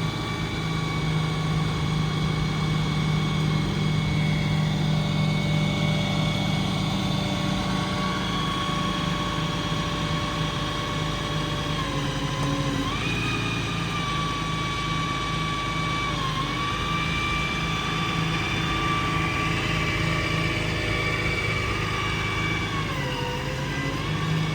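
Cummins 6.7 diesel running under a steady hum while the IMT crane's hydraulics are worked from the remote, giving a steady whine that dips and shifts in pitch about halfway through, again a few seconds later, and near the end as crane functions change.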